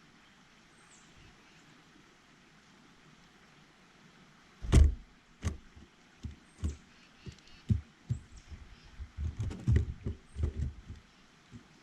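A series of irregular knocks and thumps close to the microphone, starting about four and a half seconds in and coming thicker near the end, with a few faint high chirps.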